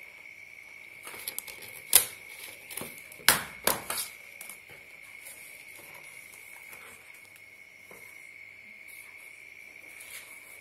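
Large cardboard box being opened by hand: flaps pulled apart and packing handled, with a few sharp knocks and scrapes in the first four seconds, the loudest about two seconds in, then quieter rustling. A steady faint high tone runs underneath.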